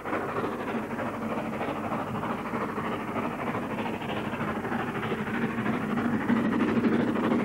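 Two South Maitland Railways 10 class 2-8-2 tank steam locomotives working hard up a grade with a loaded coal train, heard from a distance as a steady rumble that grows somewhat louder near the end. The sound is dull and cut off at the top, as recorded on super 8 sound film.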